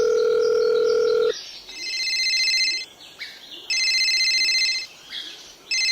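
A steady electronic tone for about a second, then a telephone ringing: a high trilling ring in bursts of about a second with a second's gap, twice, with a third beginning near the end.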